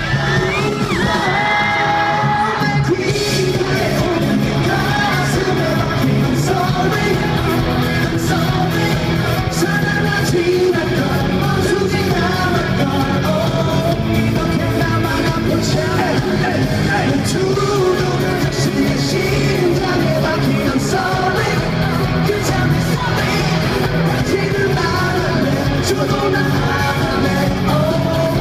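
Pop-rock band playing live: a male lead singer sings over electric guitars, bass and drums.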